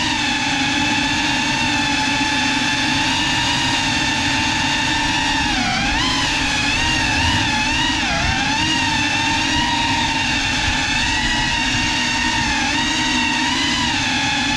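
Brushless motors and ducted propellers of a GEPRC CineLog35 cinewhoop drone whining steadily in flight, heard from on board, the pitch wavering with throttle and dipping briefly twice, about six and eight seconds in.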